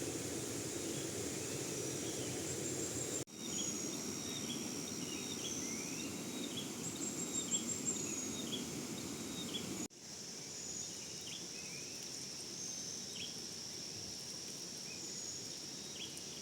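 Outdoor ambience of insects trilling steadily at a high pitch and birds chirping, over a steady low rushing noise. The sound breaks off abruptly twice.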